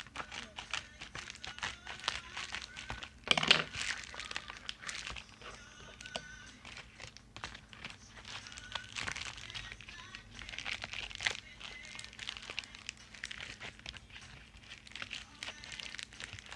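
Packaging crinkling and rustling as hands work at opening a mailed package, in irregular crackles, with one louder rip or crunch about three and a half seconds in.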